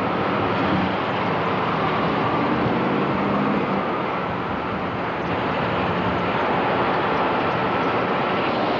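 A ZIL-131 six-wheel army truck's engine running as the truck drives slowly past. The steady engine hum sits under a constant rushing noise.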